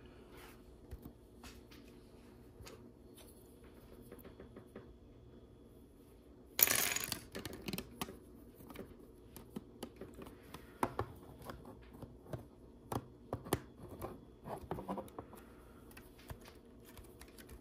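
Small plastic LEGO pieces clicking and rattling as they are handled and fitted together, with a louder clatter of pieces about seven seconds in.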